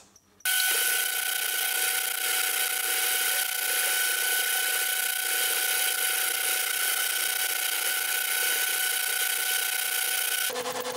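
Hafco AL-250G metal lathe turning a lopsided 4140 chromoly steel blank while a sharp carbide insert takes a light roughing cut. The sound is a steady whine over a high hiss, starting about half a second in. Near the end it shifts abruptly to a lower tone with a fast pulse.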